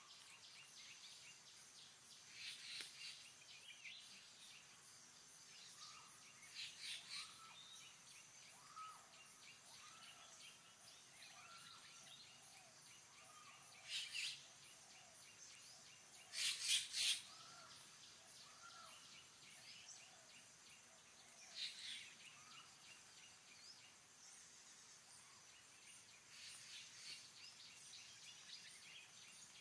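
Faint forest birds calling: a run of short repeated rising-and-falling notes through the middle, and several brief high chattering bursts, the loudest about sixteen seconds in.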